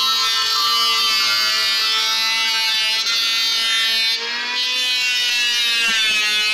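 Electric hand planer running with a steady motor whine. About four seconds in the level drops briefly, and after that the pitch sags and rises again.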